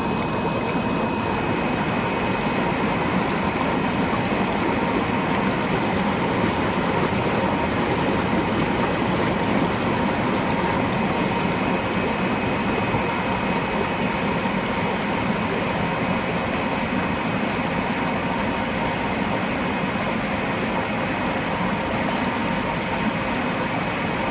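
Fruit and vegetable washing machine running: a steady rush of churning water over a constant motor hum.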